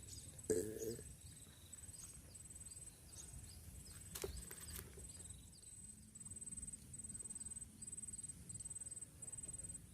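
Insects chirping in a steady high pulse, about two chirps a second. A short, loud, low-pitched sound comes about half a second in, and a sharp click comes around four seconds in.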